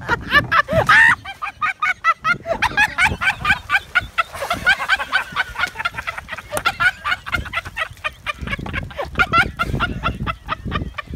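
Loud, rapid, cackling human laughter that runs almost without a break, with a rising shriek about a second in.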